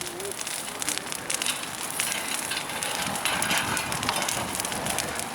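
Wood bonfire burning, a dense crackle with many sharp little pops.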